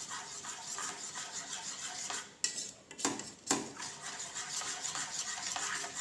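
Metal spoon stirring a runny chocolate mixture in a stainless steel bowl, scraping and clinking rapidly against the sides. It pauses briefly about two and a half seconds in, with a couple of sharp knocks just after.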